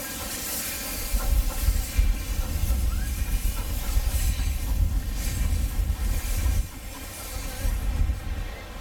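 Narrow-gauge steam tank locomotive working close by: steam hiss over a heavy low rumble that drops away about two-thirds of the way through.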